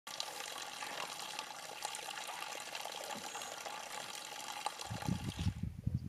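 A steady hiss of water that stops about five and a half seconds in. Irregular low thuds take over near the end.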